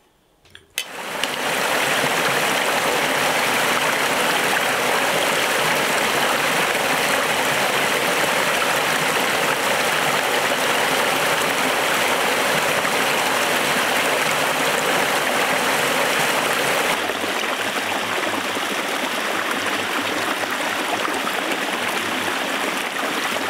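Rushing water, a steady even rush that starts abruptly about a second in and shifts to a slightly duller tone about two-thirds of the way through.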